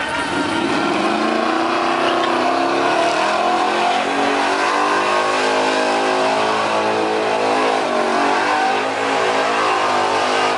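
Pickup truck engine revving up in the first second, then held at high revs with the pitch wavering, during a burnout donut with the rear tyres spinning and smoking.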